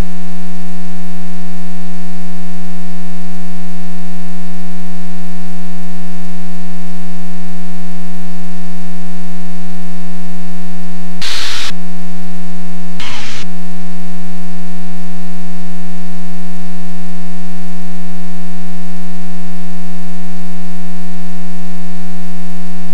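Loud, steady electrical hum on the aircraft intercom audio feed: one low buzzing tone with many overtones, unchanging in pitch. It is broken twice by brief bursts of hiss, about eleven and thirteen seconds in.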